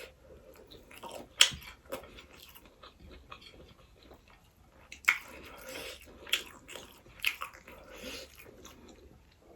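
A person chewing food close to the microphone: wet mouth sounds broken by several short, sharp crunches or clicks, the loudest about a second and a half in and again at about five seconds.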